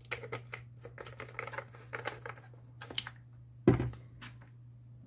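A quick run of small clicks, taps and rustles from hands handling tools and small parts at a work surface. One much louder knock comes near the middle, over a steady low hum.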